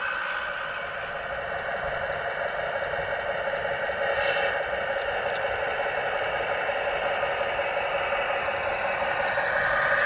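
Radio-controlled scale model of a MAZ-537 heavy truck driving: the electric motor and gearbox whine steadily, with a few light clicks about four to five seconds in.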